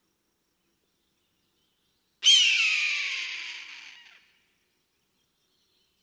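A single eagle scream: a sharp call that starts suddenly about two seconds in, slides down in pitch and fades away over about two seconds.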